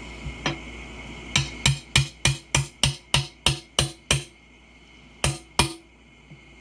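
Hammer blows on metal while a tire is being broken off its rim by hand: about ten sharp strikes at roughly three a second, each with a short ring, then two more after a brief pause.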